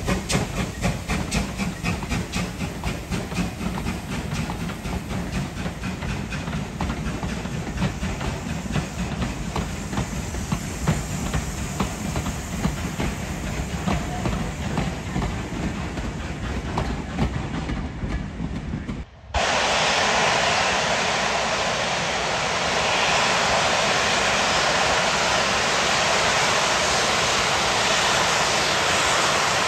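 Steam locomotive and train running past with a fast, even beat of exhaust and wheel clatter, loudest at the start. About two-thirds of the way through it cuts off abruptly, and a steady, louder rushing noise with no beat takes over.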